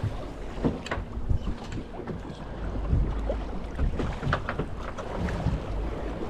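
Wind buffeting the microphone over open water, with water lapping against a boat hull and a few short knocks and taps.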